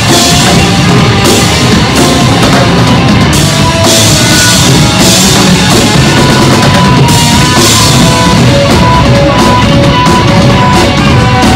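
Live rock band playing loud, busy instrumental music: a drum kit with frequent cymbal crashes, electric guitars, bass guitar and saxophone. Over the second half a high note is played in short repeated stabs.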